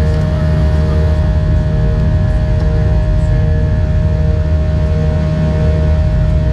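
Steady engine drone heard inside the cabin of an Airbus A320 with IAE V2500 turbofans: a deep rumble under a steady hum, with a tone that wavers in a slow beat about twice a second.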